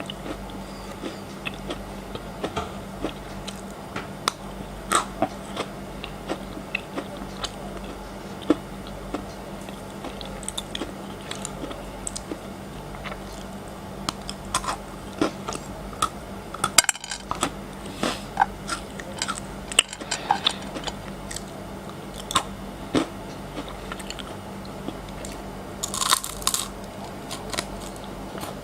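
Close-miked crunching and chewing of frozen chocolate: many sharp, irregular cracks and clicks as the hard pieces are bitten and broken, with one longer rasping burst near the end, over a low steady hum.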